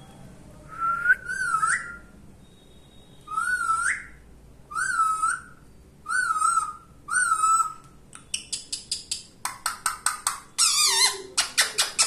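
Indian ringneck parakeet whistling a string of short warbling calls, five in the first eight seconds, then breaking into a fast run of clicking chatter with another loud warbling call near the end.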